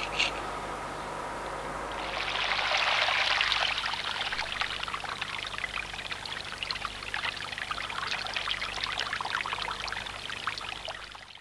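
Water pouring, swelling about two seconds in and loudest soon after, then going on as an uneven trickle and splash until it cuts off suddenly.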